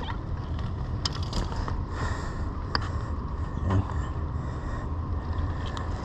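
A steady low rumble with a few light clicks and taps from hands handling a caught fish, fishing line and hook.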